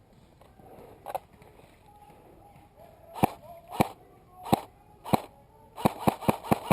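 Airsoft gun firing single shots: about ten sharp cracks, one about a second in, then a shot every half second or so, with the last four in quick succession near the end.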